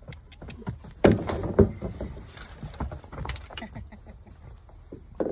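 Hollow knocks and thuds against a plastic tunnel, with hooves scuffing the dirt beside it. Two loud knocks come about a second in and another a little past the middle.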